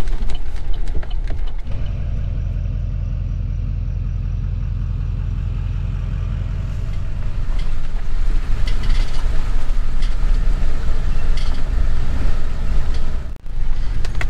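Chevrolet Silverado pickup driving on a dirt forest road: a steady low engine and road rumble, growing louder about halfway through with scattered clicks and rattles over it.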